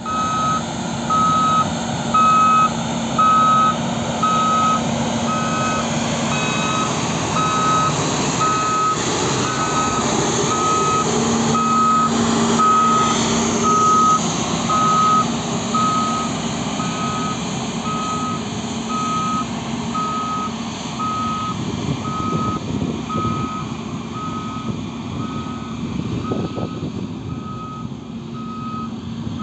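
Reversing alarm of a Caterpillar CS64B single-drum soil compactor beeping steadily about once a second, over the machine's steady diesel engine, as it reverses while compacting an earth embankment layer.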